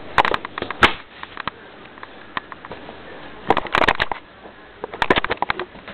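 Handling noise from fingers on the camera: sharp clicks and short rubbing scrapes, in three clusters, near the start, a little past halfway and near the end.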